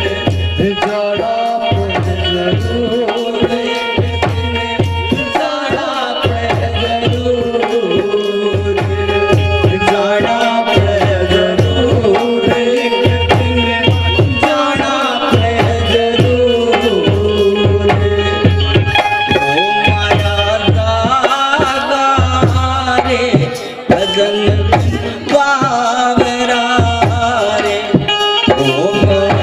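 Bhajan accompaniment: a dholak drum playing a steady rhythm under a harmonium carrying the melody, with a brief dip in loudness about three quarters of the way through.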